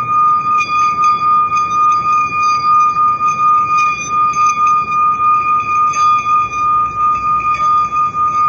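Metal singing bowl rubbed around its rim with a wrapped wooden mallet, ringing one steady high sustained tone with fainter overtones. The tone wavers in loudness a couple of times a second as the mallet circles, with faint scrapes where the mallet grips the rim.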